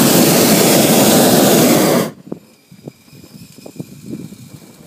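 Hot air balloon's propane burner firing, a loud steady rush that cuts off suddenly about two seconds in, followed by a few faint knocks.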